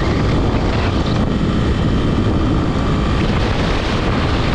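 Honda XR250 Tornado single-cylinder motorcycle running steadily on the road, with wind rushing over the microphone.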